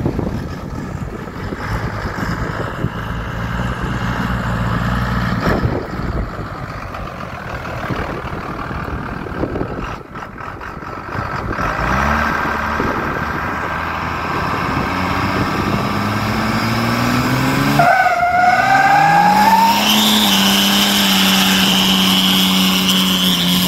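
Rat rod pickup's twin-turbo 12-valve diesel engine running steadily as it drives slowly. It then revs up hard for a burnout, the engine climbing in pitch, with a high rising whine. Near the end a loud, high, steady squeal of the spinning rear tyres runs over the engine.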